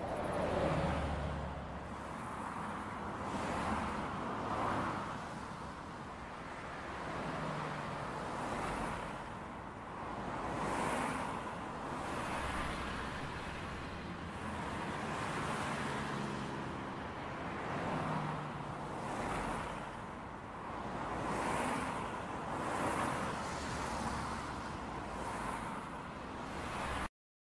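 Distant city traffic noise: a steady hum of cars and roads heard from above, swelling and fading every second or two.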